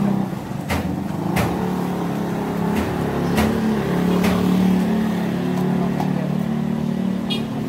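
A motor vehicle's engine running steadily close by, a constant hum, with several sharp clicks and clacks over it.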